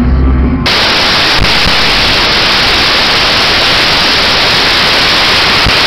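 The rock music stops abruptly just after the start, and loud, steady static hiss like white noise takes over without change.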